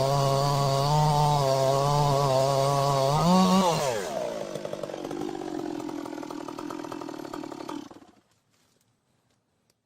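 Chainsaw running hard under load, as in a cut. Its pitch rises briefly about three and a half seconds in, then drops away to a quieter, lower running speed. The sound cuts off abruptly about eight seconds in, leaving near silence.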